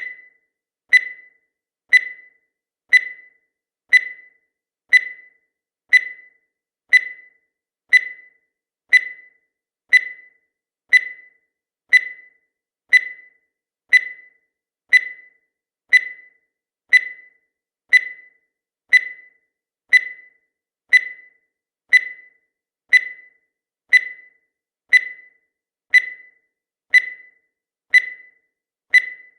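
Countdown timer sound effect: a short, high electronic beep repeating exactly once a second, each beep dying away quickly.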